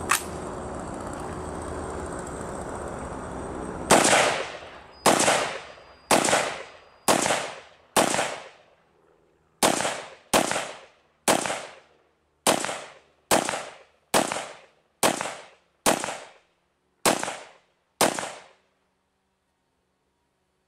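Fifteen semi-automatic 5.56 rifle shots from an AR-style rifle with an 11.5-inch Spikes Tactical barrel and a Barking Spider 2 muzzle brake, fired at about one a second with a brief pause near the middle. Each shot is a sharp crack with a short echoing tail.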